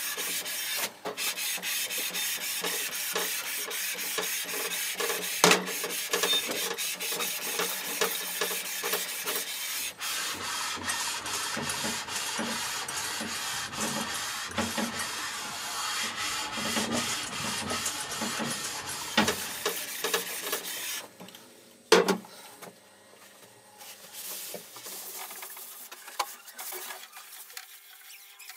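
Surface plate being lapped with abrasive: steel pushed back and forth over the plate in quick strokes, a continuous gritty scraping rub. About 21 seconds in the scraping stops, there is a single sharp knock, and then softer, intermittent rubbing follows.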